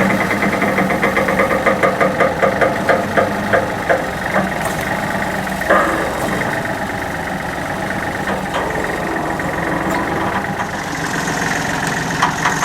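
Backhoe's diesel engine running, with a fast rhythmic pulsing through the first few seconds that settles into a steady run, and a sharp click about six seconds in.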